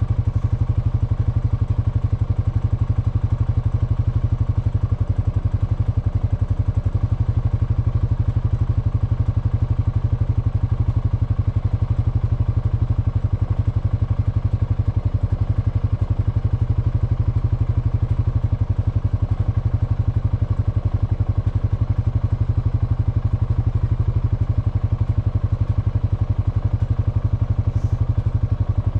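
Honda FourTrax Foreman ATV's single-cylinder engine idling steadily, its firing pulses even and unchanging.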